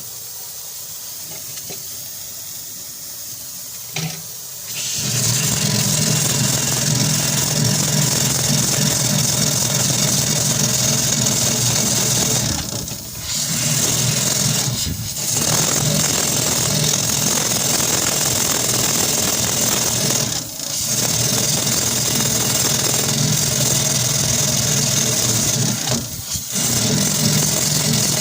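A small machine running steadily with a low hum and a hiss, setting in about five seconds in and dipping briefly a few times.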